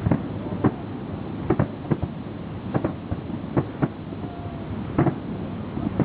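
Fireworks exploding in the air, about a dozen sharp bangs at irregular intervals over a steady rumbling background.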